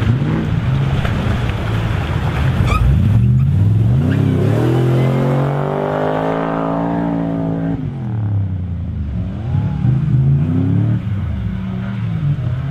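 Nissan Patrol 2.8-litre turbodiesel engine revving under load as the 4x4 drives through wet sand and mud: the pitch climbs for a couple of seconds, holds high, then drops about eight seconds in, followed by a few shorter rises and falls.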